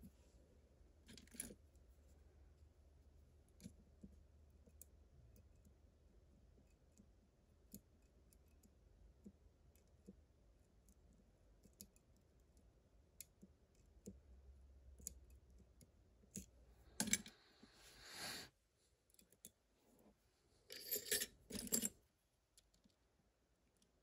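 Faint scattered clicks of lock picks working the pins inside an Abus TS5000 lock's keyway. Two louder bursts of handling noise, each about a second long, come about 17 and 21 seconds in.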